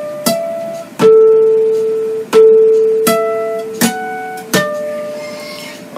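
Natural harmonics plucked on a classical guitar at the 7th and 12th frets, six clear bell-like notes ringing one after another to imitate a train station chime. The two lowest notes, in the middle, are the loudest and ring the longest.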